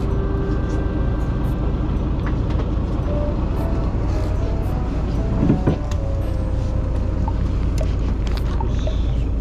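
Fishing boat's engine running steadily at idle, a constant low rumble, with a single knock about five and a half seconds in.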